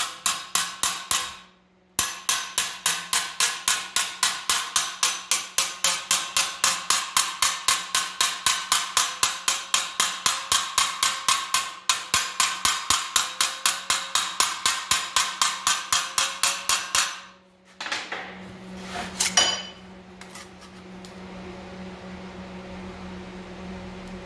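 Hand hammer striking a sheet-steel patch clamped in a bench vise, fast even metal blows at about four a second, forming and sharpening the outer edge of a hand-made bead. The hammering breaks off briefly just after the start and stops about two-thirds of the way through, leaving a few handling knocks and a steady shop hum.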